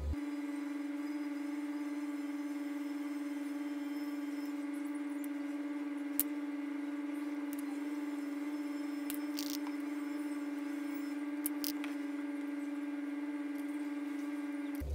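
A steady humming tone held on one unchanging pitch, with faint overtones above it. A couple of faint clicks come through, once midway and once near the end.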